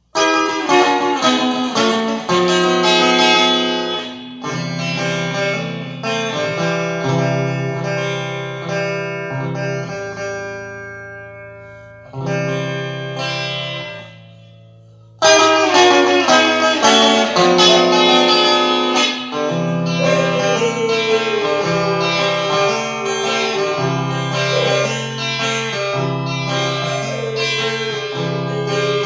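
Guitar playing chords, left ringing and fading for several seconds, nearly stopping about halfway through, then struck loudly again and played on.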